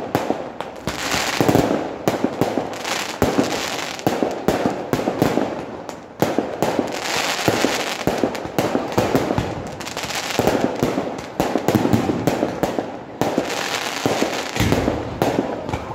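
Aerial fireworks going off in quick succession: a dense, unbroken run of bangs and crackling.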